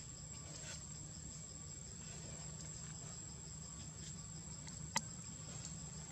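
Steady high-pitched drone of insects, with a single sharp click about five seconds in.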